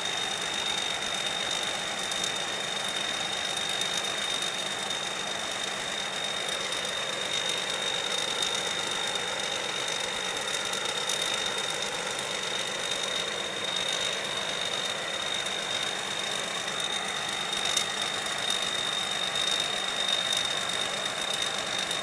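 Combine harvester running steadily, a constant engine and machinery noise with a steady high-pitched whine throughout.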